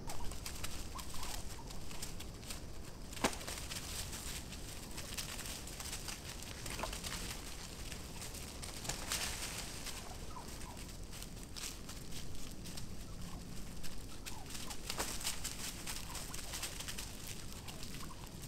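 A flock of Osceola wild turkeys feeding on scattered corn in dry leaf litter: short calls now and then over steady scratching, pecking and rustling in the leaves.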